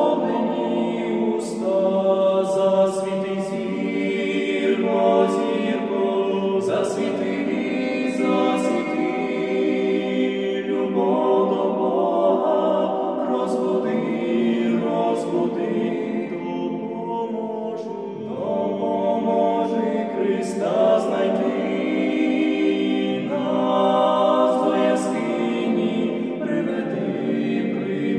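Male vocal trio singing a Ukrainian Christmas carol (koliadka) a cappella in close harmony, in long sustained phrases with brief breaks for breath.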